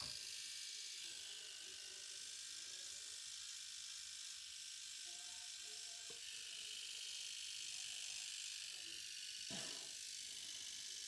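Small electric hair trimmer buzzing steadily as it trims the hair around the ear and hairline.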